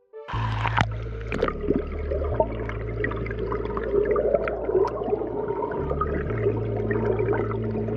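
Stream water rushing and bubbling, heard muffled through a camera held underwater, with small ticks and air bubbles as a Sawyer Squeeze filter pouch is filled. It starts suddenly just after the beginning.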